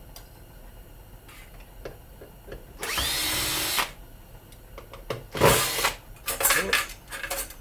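Cordless drill-driver spinning up with a rising whine and running for about a second, three seconds in. It is followed by a loud rasping burst and several sharp metallic clanks as sheet-metal parts are handled.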